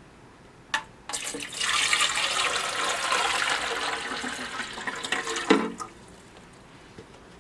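Water running into the water tank of a Bionaire BCM7255 cool mist humidifier for about five seconds as it is filled, with a sharp click just before the flow starts and a knock as it ends.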